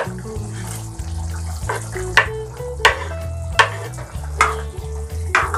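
Paneer cubes being pushed off a wooden chopping board with a steel ladle into a pan of simmering gravy, giving several short scrapes and plops with a bubbling sizzle, over a steady background music bed.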